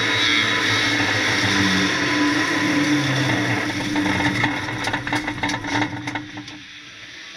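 1600cc banger race car engine running hard, heard from inside the stripped-out cabin. About four and a half seconds in it breaks into a run of sharp pops and bangs, then cuts out about six and a half seconds in. Flames are showing in the engine bay: the engine is failing and on fire.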